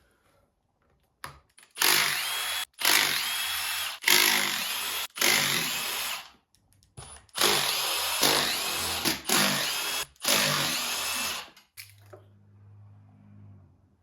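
Handheld power tool, such as a drill-driver or electric impact, run in about eight short bursts of roughly a second each with brief gaps between, as fasteners are run out of the engine.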